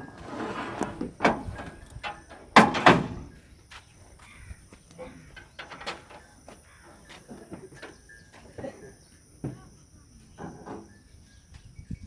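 Knocks and rattles from the metal rails of a pickup's cargo bed as its gate is handled and tied shut, with one loud clang about two and a half seconds in.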